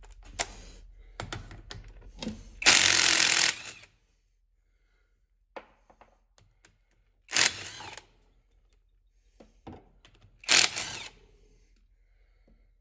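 Metal tools and transmission parts clanking and knocking on a shop bench, with three louder short bursts of noise, the longest about a second, near the start, middle and end.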